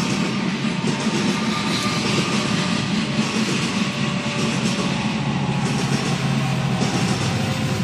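Coal train's hopper cars rolling past, a steady rumble and clatter of wheels on rail, heard through a car's windshield. Near the end a steady low engine hum joins as the diesel locomotive at the tail of the train goes by.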